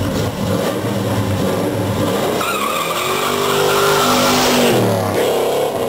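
1970 Chevrolet Chevelle launching hard and accelerating past, its engine revving up with tires squealing, then the pitch dropping as it goes by near the end.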